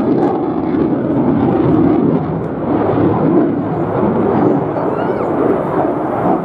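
Saab Gripen fighter jet's single engine, a loud, steady rumbling roar as the jet flies past.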